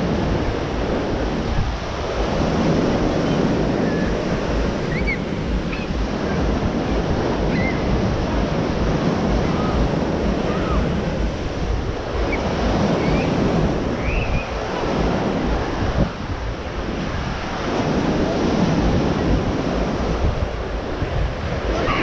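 Ocean surf breaking and washing up a sandy beach, rising and falling with each wave, with wind buffeting the microphone.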